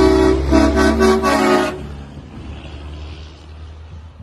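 Semi truck's air horn blowing a chord in several blasts for nearly two seconds over the low rumble of its diesel engine. After that, the engine and tyre noise fade as the truck pulls away.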